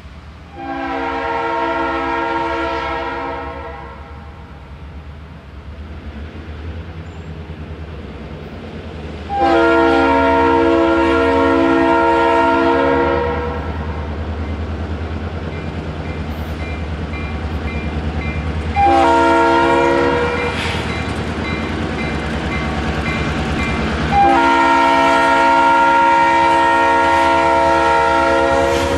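Georgia Central diesel locomotive's air horn sounding the grade-crossing signal: two long blasts, a short one, then a final long blast. Underneath, the low rumble of the approaching locomotive's engine grows.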